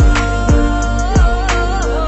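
Background music: a song with a wavering sung or melodic line over a steady deep drum beat.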